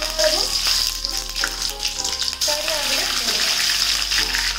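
Dried red chillies and curry leaves frying in hot oil in a pan, a loud steady sizzle with scattered crackles.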